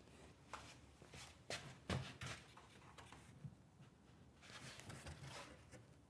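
Faint handling sounds from a tall plywood cabinet being pushed and squared up: a few light knocks, the loudest about two seconds in, then a short rubbing scuff near the end.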